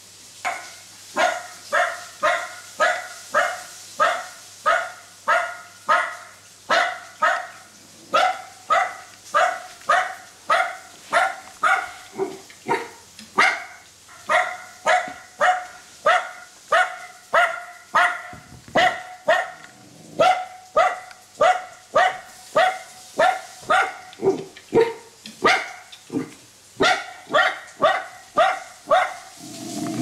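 Recorded dog barking played through a small Bluetooth speaker: a long series of alike barks at about two a second, with a few short breaks.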